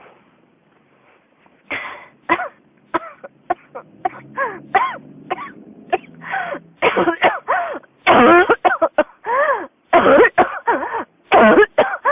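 A person coughing in a fit that won't stop: after a short quiet, single coughs start about two seconds in and come faster and louder, becoming long runs of coughs from about eight seconds in.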